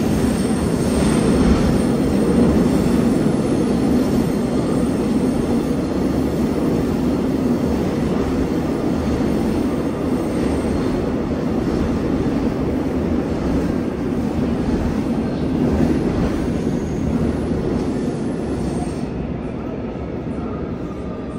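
Seoul Subway Line 4 train with GEC Alsthom GTO-VVVF traction gear, heard from inside the car while running through a tunnel: a steady rumble of wheels on rail. Faint high tones from the traction equipment sit over it and stop about nineteen seconds in, as the running noise eases off a little.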